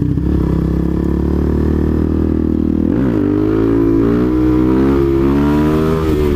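Suzuki DR-Z400SM supermoto's single-cylinder four-stroke engine idling steadily, then revving up about three seconds in as the bike pulls away, its pitch rising and dipping with the throttle.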